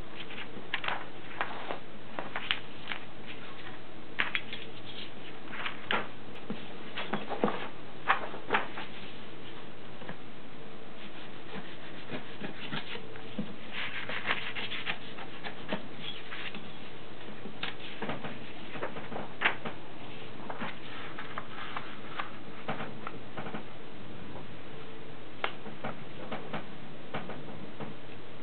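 Sheet of card paper being folded by hand on a wooden tabletop: scattered rustles, slides and soft taps as the hands press and smooth the creases, over a steady background hiss.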